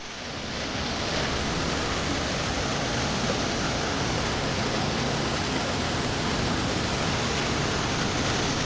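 Rushing water of a waterfall and mountain stream in spate after rain, a steady, loud roar that fades up over about the first second.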